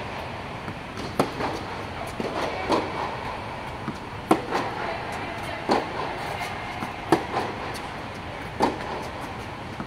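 Tennis balls struck by rackets in a forehand rally: a sharp pop of ball off strings about every one and a half seconds, with softer knocks in between, over a steady background noise.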